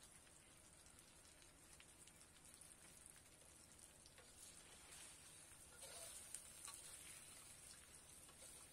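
Faint sizzling and crackling of chicken pieces and grated coconut deep-frying in plenty of oil in a wok. It grows a little louder in the second half as a ladle stirs the pan.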